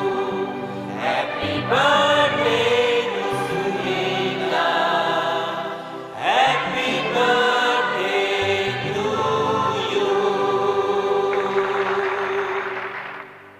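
Music with singing voices over a steady backing, fading out near the end.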